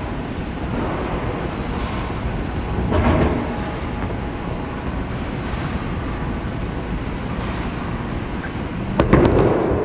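Bowling alley sounds: a steady rumble of rolling balls and lane machinery, a clatter about three seconds in, and a louder burst of hard knocks and clatter about nine seconds in from bowling balls and pins.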